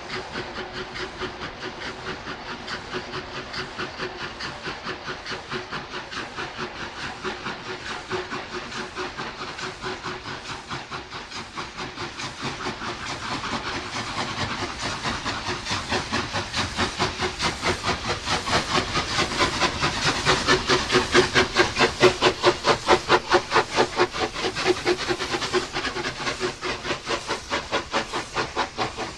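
Two steam locomotives with Giesl ejectors double-heading a heavy freight train uphill, working hard with rapid, even exhaust beats over a steady hiss. The beats grow louder as the engines come close, peak about two-thirds of the way through, then ease slightly.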